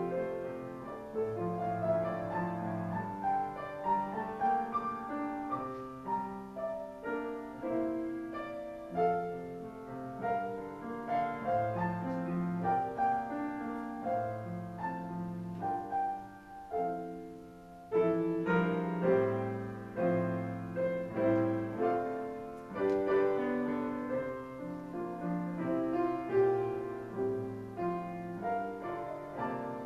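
Grand piano playing a slow classical-style piece, single notes and chords struck and left to ring. It softens briefly past the middle, then comes back in with a strong chord.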